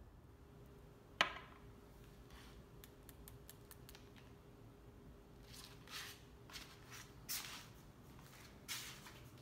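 A single sharp plastic click as an insulin syringe is handled, followed by a few faint ticks. Near the end come several soft shuffling footsteps on a tile floor.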